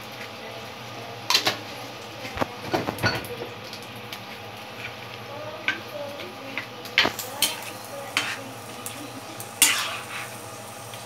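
A ladle stirring chicken pieces in coconut milk in a pan, clinking and scraping against the pan in irregular knocks, the loudest near the end.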